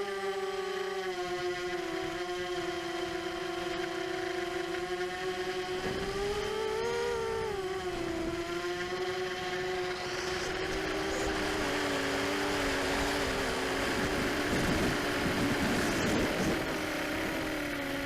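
Brushless motors and propellers of an ImmersionRC Vortex 250 Pro racing quadcopter whining steadily in flight, the pitch rising briefly about seven seconds in as throttle is added, then settling. A rushing noise builds over the second half.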